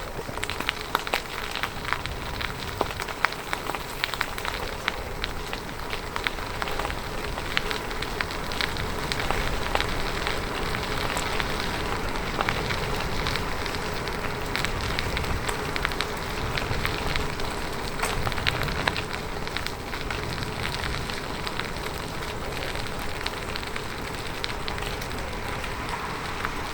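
Bicycle tyres rolling over a rough surface, a steady hiss of tyre noise full of small crackling clicks.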